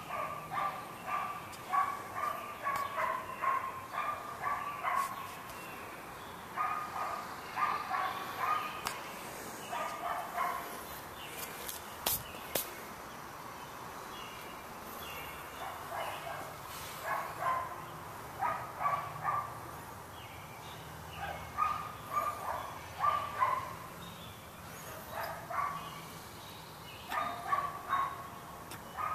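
A dog barking in quick runs of short yaps, several a second, with pauses of a few seconds between the runs.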